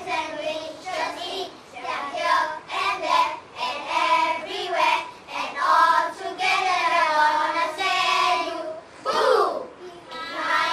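A group of young children singing together in unison, unaccompanied, in short phrases. About nine seconds in, a voice swoops sharply in pitch.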